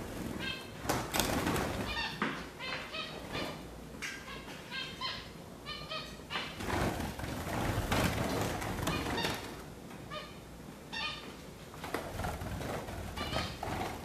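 Caged Gouldian finches chirping over and over in short, high notes. Louder bursts of rustling and wing flapping come about a second in and again around seven seconds in.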